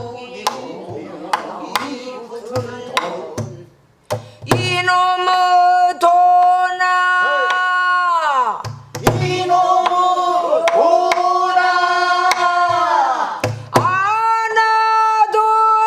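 Pansori singing by a woman, accompanied by a buk barrel drum. The first few seconds are mostly drum strokes with light voice. About four seconds in she holds long wavering notes in three phrases, with drum strokes at each break.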